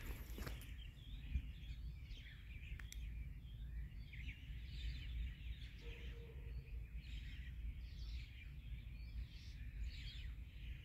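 Small birds chirping and twittering outdoors, many short overlapping calls, over a steady low background rumble.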